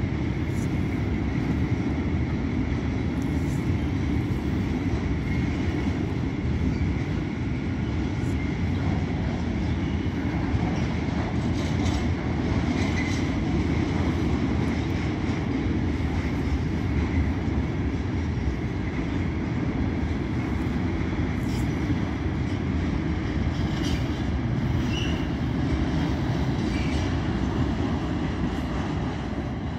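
Freight train of hopper wagons rolling past, a steady rumble of wheels on rails with a few short, high wheel squeaks; the sound starts to fall away near the end as the last wagons move off.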